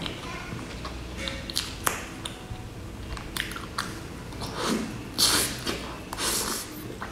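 Close-miked wet mouth sounds of eating soft, creamy cake from a spoon: chewing and lip smacking with small clicks, the loudest bursts about five to six and a half seconds in.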